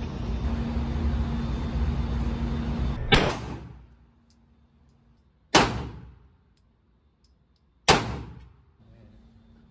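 Three single pistol shots from a 9mm Glock 43X, about two and a half seconds apart, each sharp crack followed by a short echoing tail. Before the first shot a steady background music bed runs and stops.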